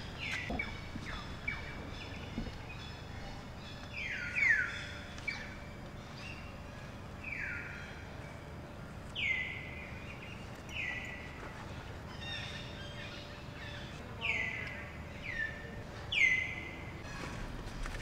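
Repeated short, high animal calls, each dropping sharply in pitch and then levelling off, about ten of them at irregular intervals, the loudest near the middle and towards the end, over steady outdoor background noise.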